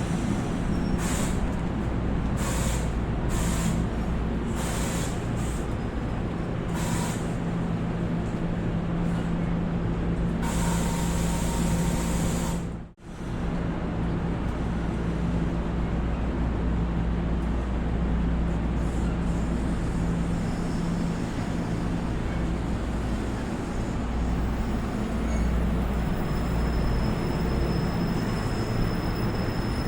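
An NJ Transit train standing with a steady low hum from its running equipment, while air hisses out in short bursts about once a second for the first several seconds, then in one longer hiss. The sound drops out for a moment about halfway through, then the steady hum carries on.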